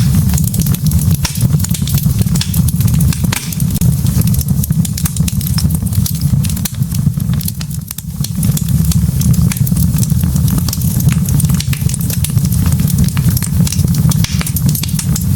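Log fire burning in a fireplace: a steady low rumble with many small crackles and pops scattered densely throughout.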